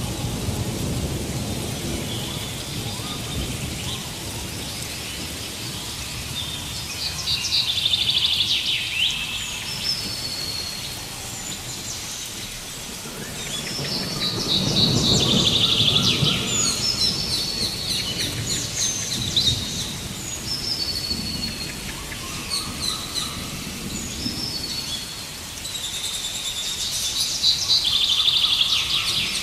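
Rain falling on a forest stream and the surrounding leaves, with low rumbles of thunder near the start and again about halfway through. Birds call in repeated bursts of rapid high trills, loudest about a quarter of the way in, around the middle and near the end, with short high notes in between.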